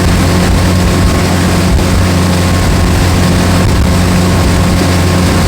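Motorboat engine running steadily underway, a constant low drone over the rush of water and wind.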